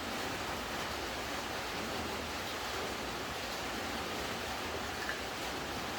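Steady rainfall, an even hiss, with one brief tap about five seconds in.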